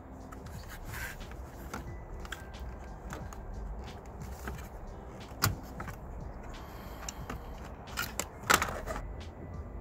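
Plastic clicks and rattles from the steering-column stalk switch assembly and its trim being handled, with one sharp click about five and a half seconds in and a cluster of louder clicks near the end.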